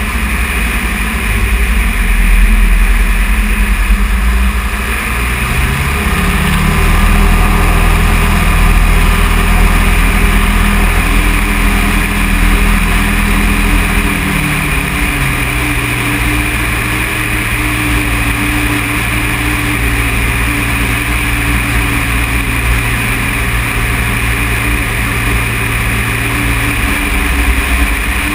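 ICP Savannah light aircraft's engine and propeller droning steadily. The pitch steps up about six seconds in and drops back about halfway through as power comes off while the plane lines up low over the highway to land, with a brief dip near the end.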